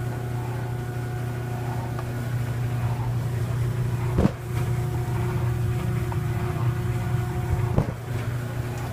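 Clothes dryer running with its door open, the drum turning with a garment caught at the opening: a steady motor hum with a whine over it. Two sharp knocks, about four seconds in and near the end.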